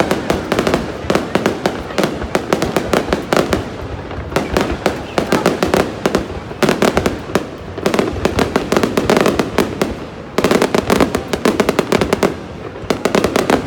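Aerial fireworks bursting overhead: dense, rapid crackling and popping, coming in volleys with short lulls every few seconds.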